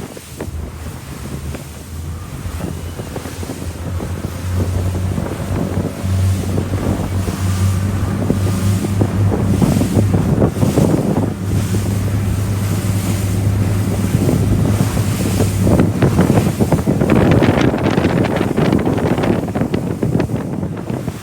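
Wind buffeting the microphone on a boat under way, over water rushing and splashing along the hull. A steady low drone runs under it for much of the time, and the wind gusts loudest near the end.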